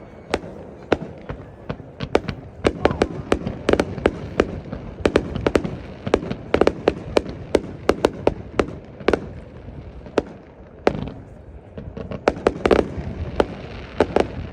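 Fireworks display: a rapid, irregular series of sharp bangs from shells bursting overhead, thinning out briefly about ten seconds in before picking up again.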